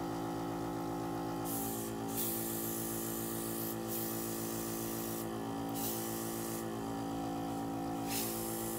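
Airbrush blowing bursts of air across wet alcohol ink on Yupo paper, pushing the ink back onto the sheet. The hiss comes in a long burst about a second and a half in, then two shorter ones, over a steady hum.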